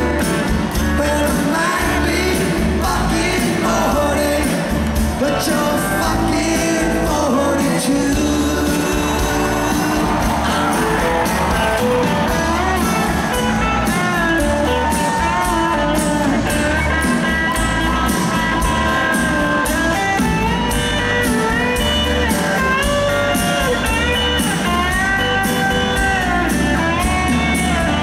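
Live rock band playing a song, with sung vocals over a steady drum and bass beat.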